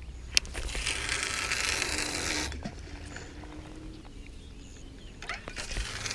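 A spinning rod being cast with a baited feeder: a sharp click, then line hissing off the reel spool for about two seconds. It goes quieter after that, with a few faint clicks near the end.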